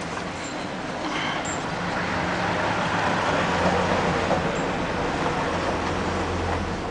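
A motor vehicle going by: a low engine hum and road noise that build up over the first few seconds and then ease off slightly.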